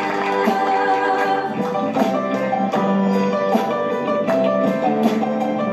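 Gospel song performed by a vocal group over an instrumental accompaniment, with guitar, held sung notes and a steady beat.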